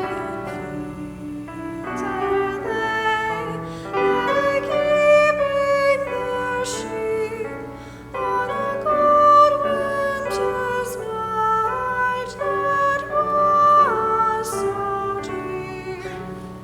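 Live sacred music: singing with instrumental accompaniment, long held notes changing every second or so, and one note sliding down to a lower pitch near the end.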